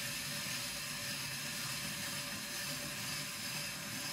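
Tupperware Fusion Master spiralizer being hand-cranked through a raw potato, the blade cutting spirals with a steady, even scraping.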